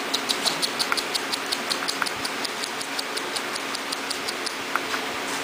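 A rapid, even series of light ticks, about six a second, that stops about four and a half seconds in.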